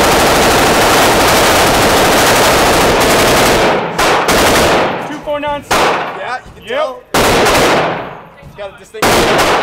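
Heckler & Koch UMP submachine gun in .45 ACP firing a sustained full-auto burst of about three seconds, then several separate shots. Each shot echoes off the walls of the indoor range.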